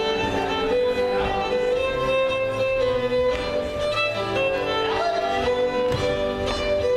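Live fiddle playing a contra dance tune with chordal accompaniment, at an even, steady loudness.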